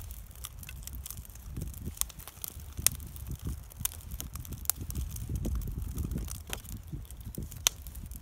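Small kindling fire of birch bark and split feather sticks crackling, with irregular sharp pops, as more split sticks are laid on. The damp wood is catching. A low rumble runs underneath.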